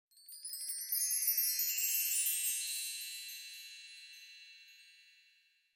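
A shimmering chime, many high bell-like tones jingling in over the first second and then ringing on and slowly fading away.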